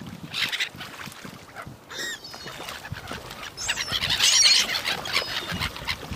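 A flock of waterbirds gathered for feeding, calling in short, high-pitched squealing calls. The calls grow thickest and loudest about four seconds in.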